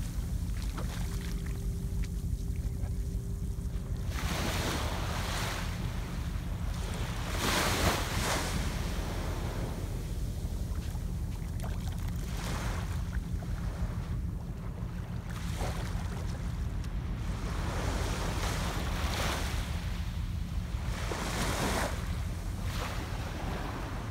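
Small waves washing up and draining back on a sandy shore, a surge of hiss every few seconds, the biggest a little under 8 seconds in, over a steady low wind rumble on the microphone.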